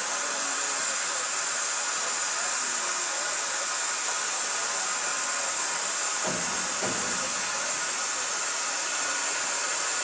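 Steady hiss of steam from the LMS Princess Royal class steam locomotive No. 6201 Princess Elizabeth standing at rest, with two dull knocks a little past halfway.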